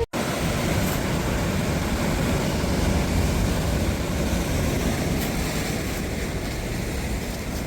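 Wind buffeting the microphone: a steady, noisy rumble that is heaviest in the low end.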